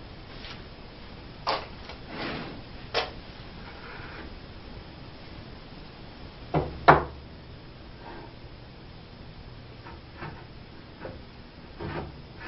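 2x4 wooden boards knocking and bumping against the table frame as a bottom stretcher is worked into place. The knocks are scattered, and the loudest is a quick pair about seven seconds in.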